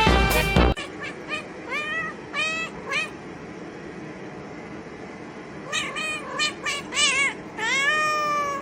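Domestic cat meowing repeatedly after background music cuts off under a second in: about five short meows, a pause of a couple of seconds, a quick run of short meows, then one longer drawn-out meow near the end.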